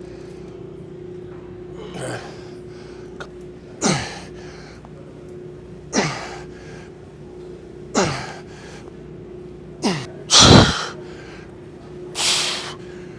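A man's forceful exertion breaths and grunts, one with each rep of a single-arm cable chest exercise, about every two seconds, several falling in pitch. The loudest and longest comes about ten and a half seconds in. A steady low hum runs underneath.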